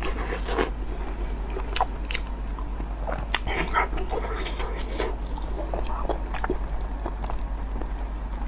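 Close-up eating sounds: wet chewing, smacking and sticky squelches of gloved hands squeezing soft meat coated in chili oil sauce, as irregular short clicks throughout. A steady low electrical hum runs beneath.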